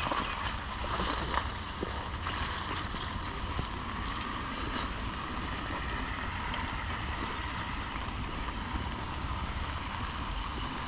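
Steady rain falling on forest foliage, an even hiss with a few sharper drip taps in the first couple of seconds, over a constant low rumble.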